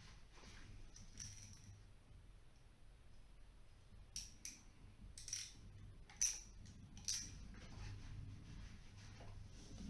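Faint, sharp metallic clicks and snips of hand tools at work on electrical wiring, joining heat-resistant wires with closed-end connectors: about six separate clicks, a couple of them close together, over a low steady hum.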